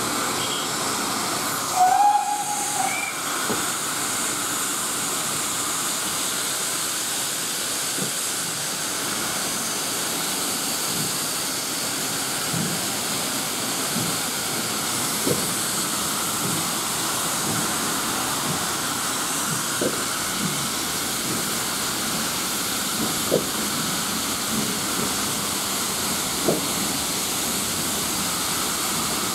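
Steady steam hiss from the GWR steam locomotives as the train starts away from the platform, with a short whistle about two seconds in and a few faint knocks later.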